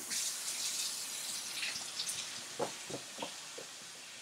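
A steady hiss starts suddenly and runs on. Over it, Chihuahua puppies give four short squeaks in quick succession, about two and a half to three and a half seconds in.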